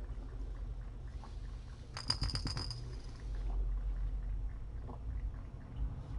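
Kittens scrabbling and playing on soft bedding, with a steady low hum underneath. About two seconds in comes a short run of sharp clicks with a bright high ring, lasting under a second.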